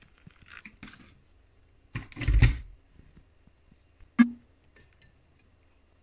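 Handling of a stainless mesh tea infuser in a glass mug: a few light rustles, a loud short bump about two seconds in, and a single sharp clink about four seconds in.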